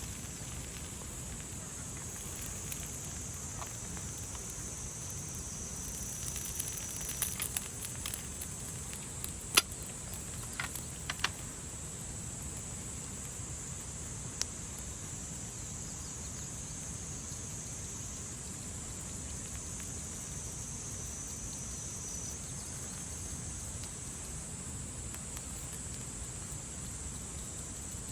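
A steady, high-pitched chorus of summer insects, with a few sharp clicks and taps around six to eleven seconds in.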